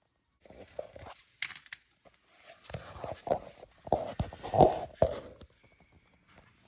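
Asian water monitors scrabbling and clambering over branches and each other: an irregular run of claw scrapes and knocks on wood, with the heaviest thump about four and a half seconds in, dying away after about five and a half seconds.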